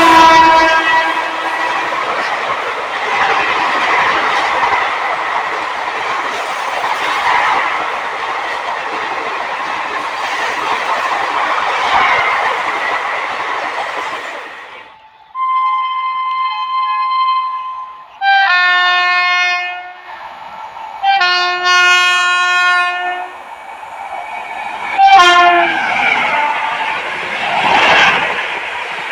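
Indian Railways express train passing at speed behind an electric locomotive: a horn blast fading at the start, then the steady rush and rattle of coaches going by. After a break, a train horn sounds three long blasts and a short one, and another passenger train rushes past near the end.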